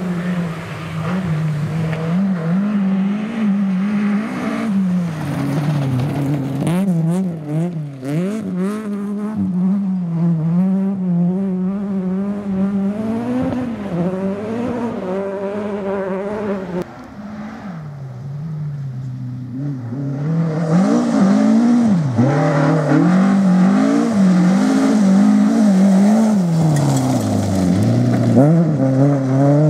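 Rally car engines on a gravel stage, revving hard and dropping back again and again through gear changes as the cars pass. First a Peugeot 205; after a short dip about halfway through, a Mk2 Ford Escort.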